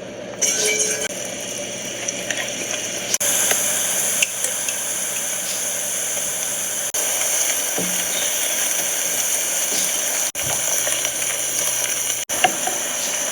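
Food frying in a hot pan: a steady sizzle with a few light scrapes and taps from stirring. The sizzle breaks off abruptly a few times.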